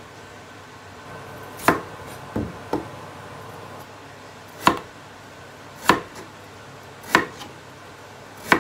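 Kitchen knife chopping through a thick peeled white root vegetable onto a wooden cutting board: slow single chops, each a sharp knock of the blade on the board. There are about five loud chops and a couple of lighter ones, one every second or so.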